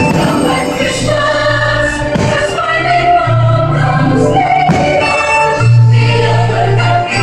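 A choir singing a Christmas song over loud, continuous music with sustained bass notes: the soundtrack of a Christmas fireworks show.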